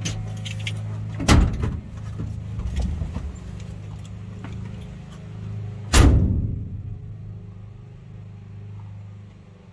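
Slant-six engine of a 1968 Dodge D100 idling steadily, heard from inside the cab. The driver's door clunks open about a second in and is slammed shut about six seconds in, the loudest sound; the engine hum drops away near the end.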